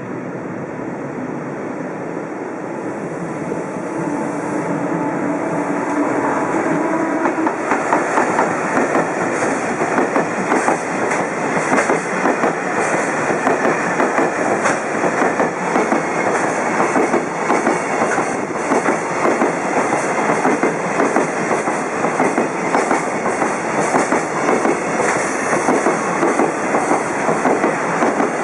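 Container freight train hauled by a JR Freight EF210 electric locomotive rolling into the station, growing louder over the first several seconds. From about eight seconds in, the wagons' wheels clack steadily over the rail joints.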